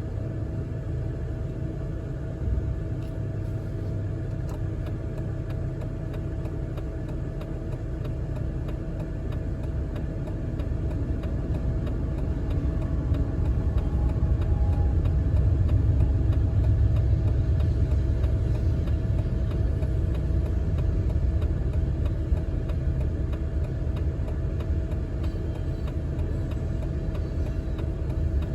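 BNSF diesel-electric locomotive and freight train running by: a steady low rumble with a faint engine drone, growing louder about halfway through as the train comes close, then holding loud.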